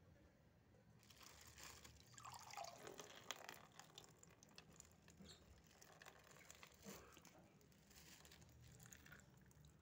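Water trickling and dripping out of a clear plastic bag onto a plastic box, starting about a second in. It is faint.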